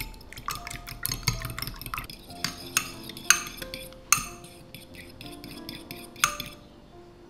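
Metal fork beating raw eggs in a glass bowl, with rapid irregular clinks and taps of the fork against the glass. A few sharper strikes come near the middle, and the beating stops about six and a half seconds in.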